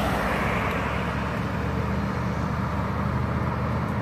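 Street traffic noise: a steady hiss of road noise with a low engine hum.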